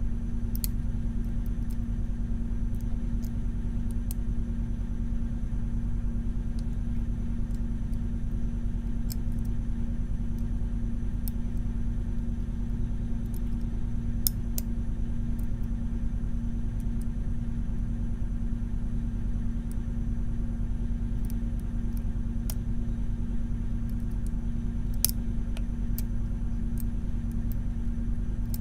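Faint, scattered clicks and ticks of a lock pick working the pins of a Mul-T-Lock Junior pin-in-pin lock, over a steady low hum.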